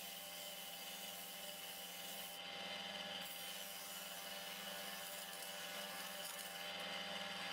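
Ryobi belt and disc sander running with a steady motor hum and whine, while a thin wooden strip held against the spinning sanding disc rasps on the abrasive.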